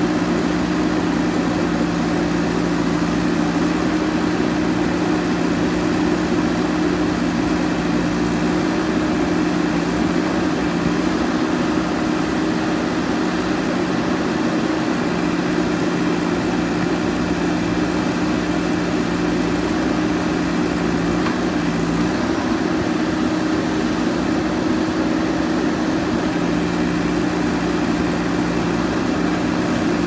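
JCB backhoe loader's diesel engine running steadily at a fairly constant speed while the backhoe arm digs soil.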